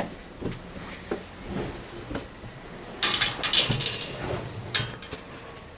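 Footsteps climbing narrow stone stairs: soft, uneven steps and scuffs, with a brushing, scraping noise against the stone about three seconds in.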